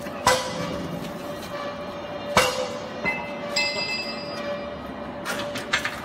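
Metal clanks from a small vertical baler's steel loading door and its latch handle being worked open: one about a quarter second in, one about two and a half seconds in, and a quick double clatter a little after five seconds, with a short high ringing in between. A steady hum runs underneath.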